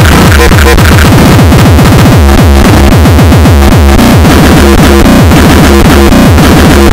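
Very loud, dense electronic dance music: a heavy low beat under a rapid run of falling synth sweeps in the first half, then chopped, stuttering synth patterns.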